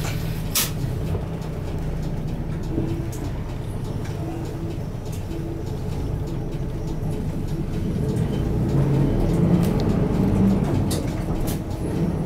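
Inside an Isuzu Erga Mio city bus: its six-cylinder diesel engine running, then working harder as the bus pulls away, getting louder in the second half. A sharp click about half a second in.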